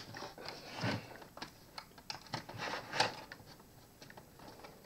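Irregular plastic clicks and short scrapes from an HP 250 G6 laptop's case being handled and pried at to get it open, with a sharper click about three seconds in.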